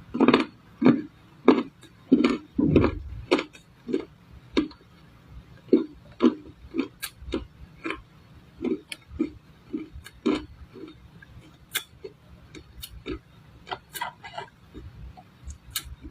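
Dry clay crunching in a series of short, crisp cracks at an uneven pace of about one to two a second. The cracks are louder and fuller in the first few seconds and sharper and fainter afterwards.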